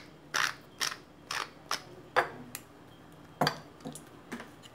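Hand-twisted black pepper mill grinding: a run of short crunching turns, about two a second, then a few sharper knocks in the second half.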